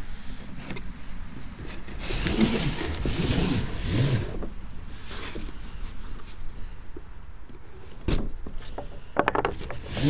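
Cardboard shipping box being torn open by hand: packing tape being cut and ripped and cardboard flaps scraping, loudest about two to five seconds in, with a couple of sharp knocks near the end.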